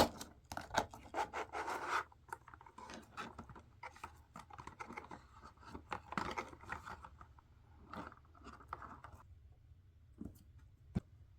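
Close-up paper-crafting sounds: paper being handled, rubbed and scratched in short irregular strokes, with scattered small clicks and taps. A sharp click comes right at the start, and the sounds thin out to a few taps after about nine seconds.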